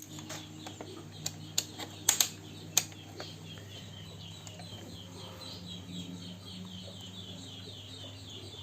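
Several sharp handling clicks in the first three seconds, over a steady low hum and a fast, even series of high chirps at about four a second.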